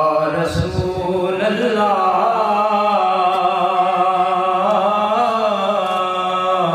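A man chanting a devotional Arabic recitation, drawing out one long held note that wavers slightly in pitch.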